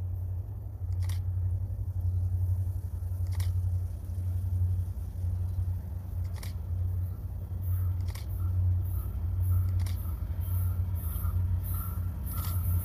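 A steady low hum with a handful of sharp clicks. From about eight seconds in, a quick repeating high-pitched pulsing joins it.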